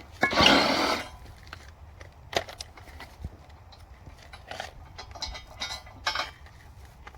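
A short loud scrape about half a second in, then scattered clicks, knocks and brief rattles of tools and metal parts being handled while unbolting sawmill parts.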